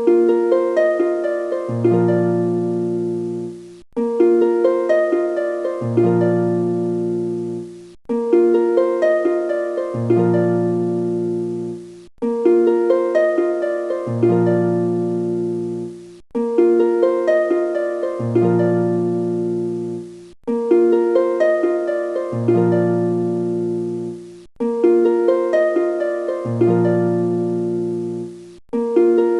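Background music: a short plucked harp-like phrase, looped so that it stops and starts again about every four seconds.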